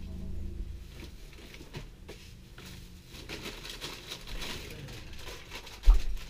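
Rummaging and handling noises: light rustling and small knocks, with a low thump near the end.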